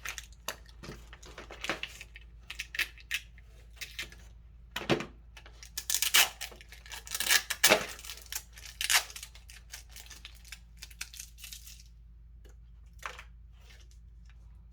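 Packaging being torn and crinkled open by hand: a run of short scratchy tearing and rustling sounds, busiest about five to nine seconds in, then only a few faint ones.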